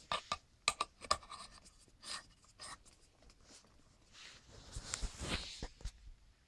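Scratchy handling noise from a handheld camera being moved with its lens covered, fingers and fabric rubbing near the microphone. A quick run of sharp clicks comes in the first second or so, and a louder rustle with a couple of low knocks comes about five seconds in.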